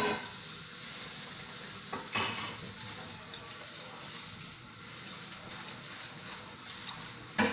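Pancakes frying in a hot, smoking pan, sizzling steadily, with a utensil knock or scrape against the pan at the start and again about two seconds in.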